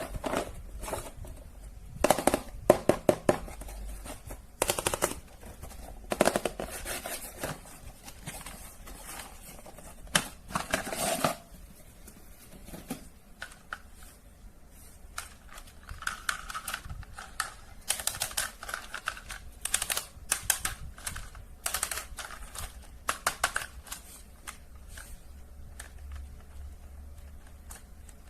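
Handling of plastic toys and packaging: irregular clusters of sharp plastic clicks and rattles, some in quick runs.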